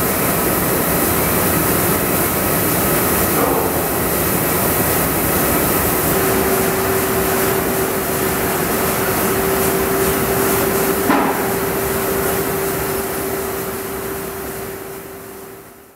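Rotogravure printing press running: a steady, loud mechanical din with a steady hum, a lower hum joining about six seconds in, two brief knocks, and a fade-out at the end.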